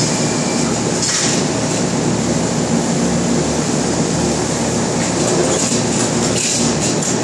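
Loud, steady industrial noise on a steel-fabrication shop floor: a machinery hum with a constant hiss over it, and a short, stronger hiss about a second in.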